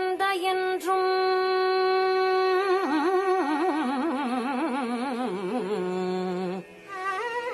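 A woman singing Carnatic music: a long held note, then a descending run of rapid, wavering ornamented notes (gamakas) down to a low held note that breaks off near the end, followed by a short rising phrase.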